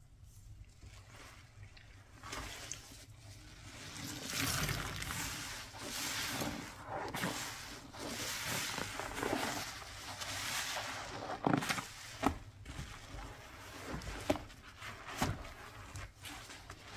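Water swishing and splashing in uneven swells during wet cleaning, with a few sharp knocks past the middle.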